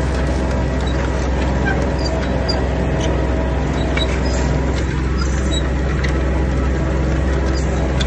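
Tractor engine running steadily at working speed, pulling a mounted disc harrow that turns the soil under the vine row, with a few faint high squeaks over the engine.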